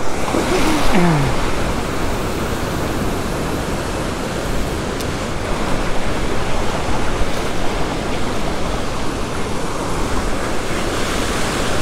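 Ocean surf breaking and washing around in a steady, even rush, with heavy low rumble.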